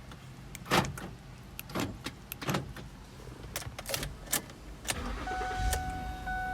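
2009 Ford Edge being worked with its newly programmed keys: a string of sharp clicks and clunks, then about five seconds in a low hum starts along with a steady electronic tone.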